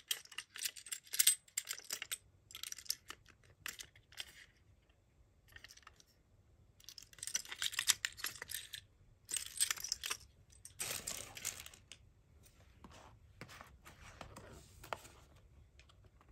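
A Tomica die-cast toy truck being turned over in the hands: irregular clusters of small clicks and light rattles from its metal and plastic body and wheels, mixed with brief rubbing and sliding sounds.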